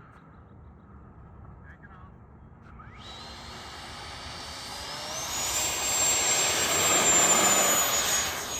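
Freewing J-10's 90 mm electric ducted fan on an 8S battery spooling up to full power for the takeoff run. A whine starts about three seconds in, climbs in pitch while growing louder, holds high, and eases slightly near the end.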